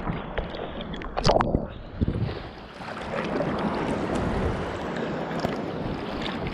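Water lapping and splashing against a camera held at the water's surface: a few sharp splashes in the first couple of seconds, then a steady rush of moving water.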